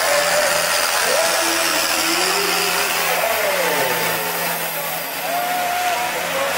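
A tractor's diesel engine runs hard under heavy load as it drags a harrow through dirt. Voices call out over it with pitch that rises and falls.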